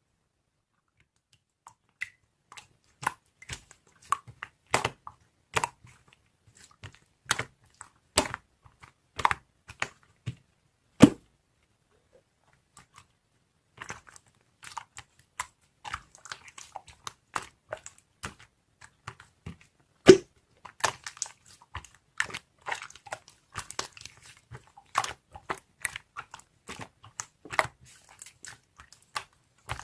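Irregular sharp clicks and crackles, close up, that start after a moment of silence and come thicker in the second half.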